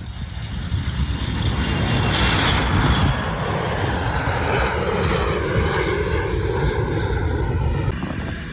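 Airliner engines passing close by. The noise swells over the first few seconds, then several engine tones slide down in pitch as the aircraft goes past.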